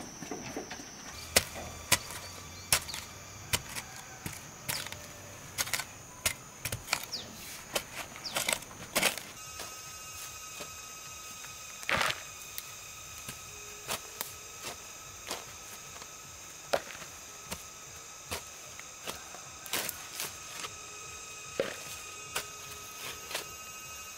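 A series of irregular sharp knocks and taps, over a steady high-pitched insect drone.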